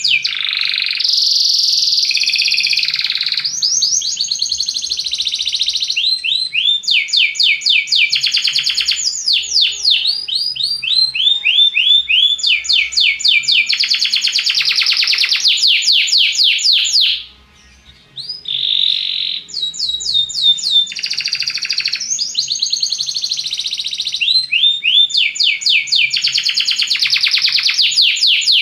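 Belgian canary singing a long song of rapid trills, each phrase a fast run of repeated notes, the phrases changing pitch one after another. The song breaks off briefly about 17 seconds in, then starts again.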